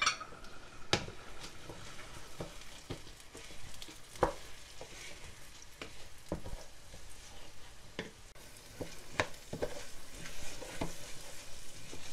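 Raw rice grains sizzling as they fry in oil in a metal pot, stirred with a wooden spoon that scrapes and knocks through them every second or so. The washed rice is being toasted with spices before the water goes in.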